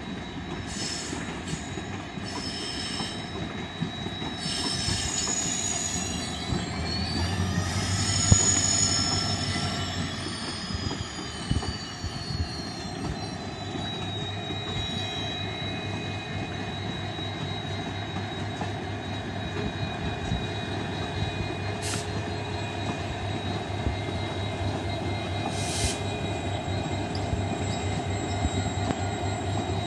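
Passenger train moving slowly on curved track, its wheels squealing against the rails in high tones that rise and then slide down and fade around the middle, over a steady rumble of wheels on track. A low steady hum sets in after about seven seconds, and two sharp clicks come in the second half.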